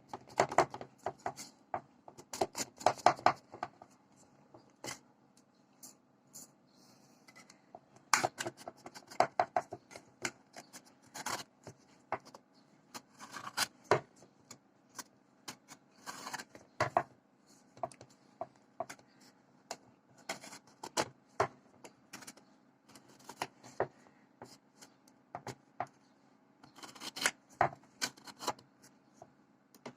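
Freshly baked fruit cake being worked out of its metal cake tin: irregular short scrapes, taps and clicks against the tin, in clusters with short pauses between.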